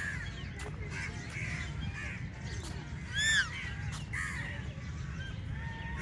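A crow gives one loud caw about three seconds in, over faint calls of other birds and a steady low hum.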